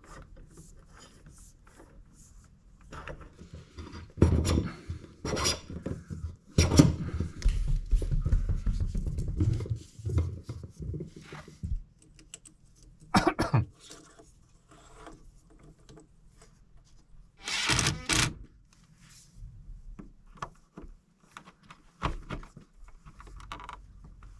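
Handling noises of electrical wiring work: cable rubbing and scraping as it is pulled through metal conduit and worked into a junction box, with clicks and knocks. It comes in irregular bursts, loudest about four to eleven seconds in, with short louder bursts near thirteen and eighteen seconds.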